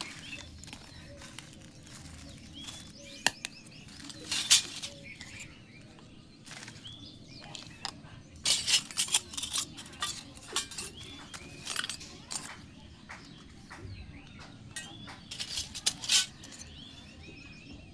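Small plastic toy pieces clicking, tapping and rustling as they are handled and fitted together while a miniature doll bedroom playset is unboxed, in irregular bursts with a few sharper clacks.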